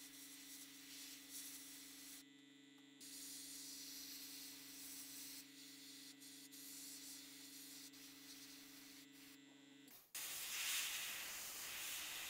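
Airbrush hissing as it sprays black acrylic pre-shading, over a steady low hum. The sound drops out briefly twice. About ten seconds in, the hum stops and the hiss gets louder.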